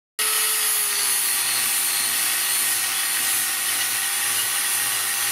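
Angle grinder with an abrasive disc grinding a steel plate, cutting in suddenly just after the start and running steadily: a steady motor tone under a strong high hiss. The steel surface is being ground clean ahead of welding.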